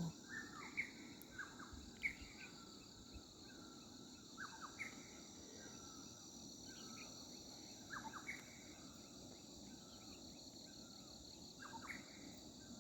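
Faint outdoor morning ambience: a steady high-pitched chorus of crickets or other insects, pulsing fast and evenly, with scattered short bird chirps throughout.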